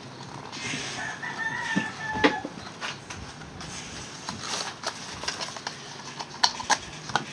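Small paperboard cube box handled: cardboard rubbing and sliding, with sharp taps and clicks, the loudest about two seconds in and a pair near the end. Over the first couple of seconds a drawn-out bird call sounds in the background.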